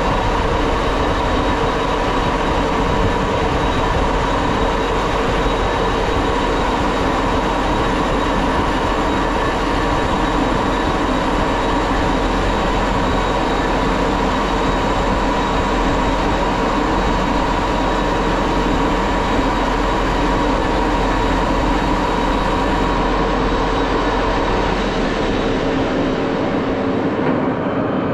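Axelson engine lathe running at 850 RPM on power feed, a steady mechanical whine and hum from the spindle drive and gearing. Near the end the higher whine drops out.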